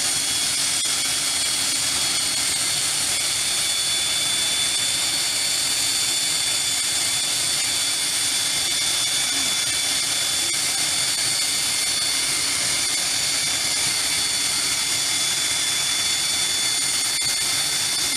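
Aircraft turbine engine running steadily: a constant high whine over a continuous rushing noise, holding the same pitch and level throughout.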